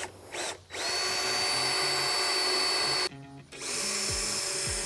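Cordless drill boring a hole into a fiberglass pool step: a short blip, then a steady high whine for about two seconds that cuts off suddenly, and a second run of the drill starting up again shortly after.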